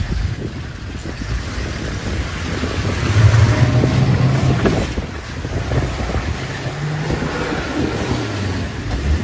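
Safari 4x4's engine running, its low hum shifting in pitch as it moves, with wind buffeting the microphone.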